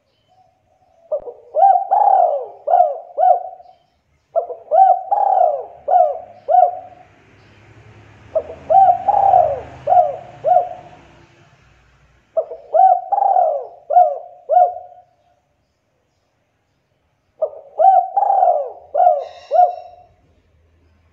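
Spotted dove (tekukur) cooing: five phrases of several notes each, a few seconds apart.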